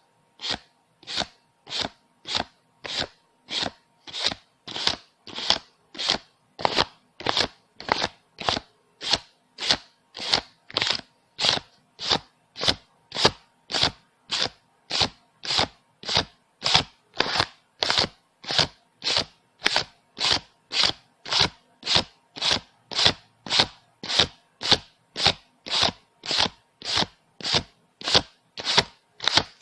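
Paper banknotes being counted off one at a time by hand, each note a short rustling flick, in a steady even rhythm of about three notes every two seconds.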